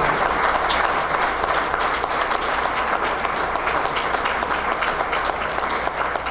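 Audience applauding steadily, a dense patter of hand claps.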